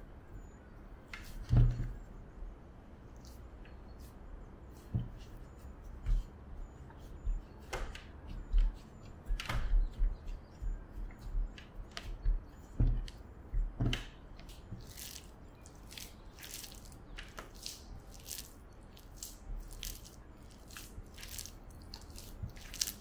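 Hands kneading butter into a soft yeast dough on a countertop, at the stage where the dough is oily and sticky. Irregular soft thumps as the dough is pressed and pushed down, the loudest about a second and a half in, turning in the later part to lighter, quicker sticky smacks as the hands pull off the dough.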